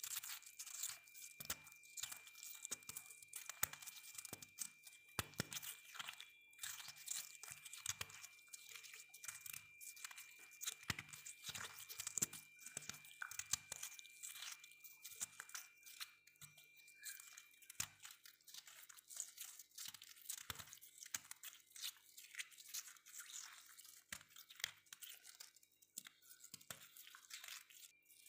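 Freezer frost being crunched close up: dense, irregular crackling crunches that go on without a pause.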